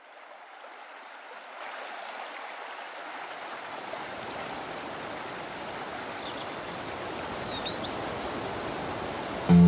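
A steady rushing noise, like running water, fades in and slowly grows louder, with a few faint high chirps about six to eight seconds in. Music starts right at the end.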